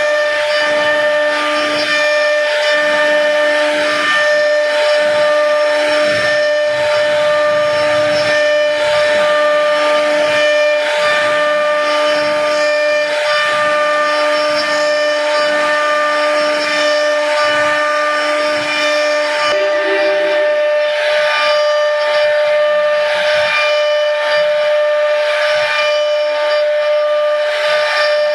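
CNC router spindle whining steadily as its carving bit cuts a decorative pattern into a wood panel, with a rasping cutting noise over the whine. The lowest note of the whine drops out about two-thirds of the way through.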